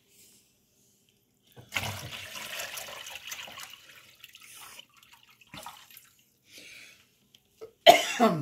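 Water poured from a plastic tub into the reservoir tank of a countertop hydroponic garden, splashing for about three seconds and then tapering to a trickle. A few light knocks follow, then a short, loud clunk near the end.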